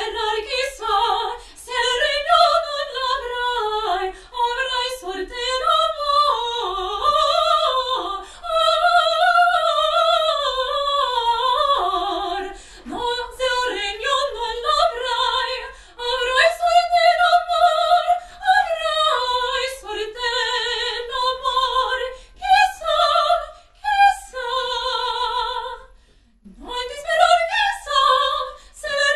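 A woman singing opera in a high soprano range, with long held notes that waver in vibrato. The phrases are broken by short pauses, the longest near the end.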